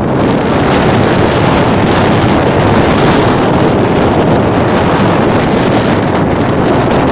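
Gale-force onshore wind, around 25 m/s, buffeting the microphone in a loud, steady rush of noise, with the storm-driven sea's waves on the shore beneath it.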